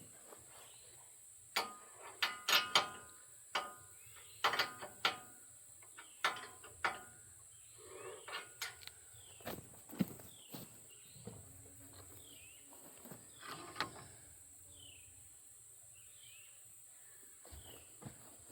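Scattered knocks and metallic clinks, clustered in the first ten seconds or so, over a steady high-pitched buzz; from about the middle on, a run of short falling chirps repeats roughly once a second.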